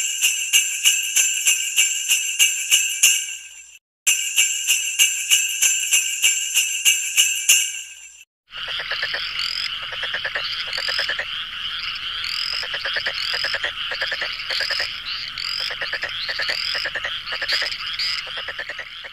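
Bell-like jingling pulsing evenly about three times a second, in two stretches of about four seconds with a short break between. About halfway through it gives way to a rapid high trilling with a short chirp about every half second.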